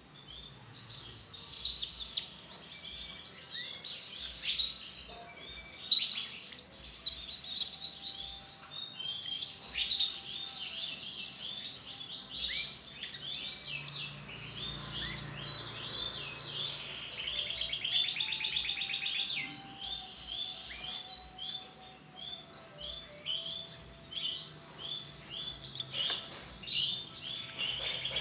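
Canary chirping and singing almost without pause: quick high notes with rapid trills mixed in.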